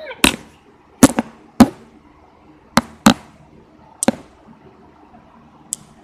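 Hard plastic Schleich toy horse figurine knocked against a hard floor: about seven sharp, irregularly spaced taps, like hoofbeats.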